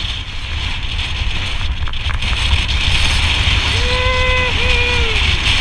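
Wind buffeting a helmet camera's microphone, with tyre noise from a mountain bike rolling fast down a paved lane. Near the end come two long, held, pitched hoots, each sagging in pitch as it ends.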